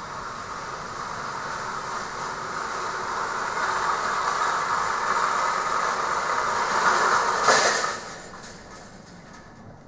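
Metal supermarket roll cages rumbling and rattling on their wheels, growing louder over several seconds, then a crash about seven and a half seconds in as a cage is rammed into its slot. The noise falls away quickly after the crash.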